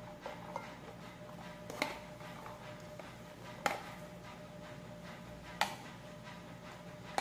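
A spoon knocking and scraping against a plastic container as diced cucumber is emptied into a salad bowl: a few light, sharp knocks about two seconds apart over a steady low hum.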